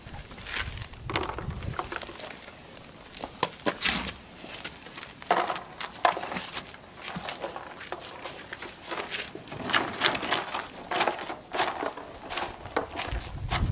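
Irregular crunching and rustling as a horse noses at cardboard boxes and chews treat pellets out of them, with scattered short crackles throughout and a low rumble creeping in near the end.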